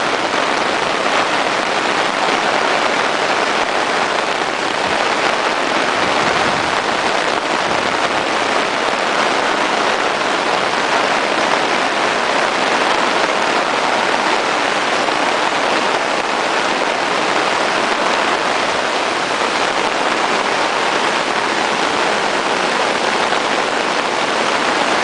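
Steady rushing noise of heavy rain together with a flooded creek running high and fast over its banks.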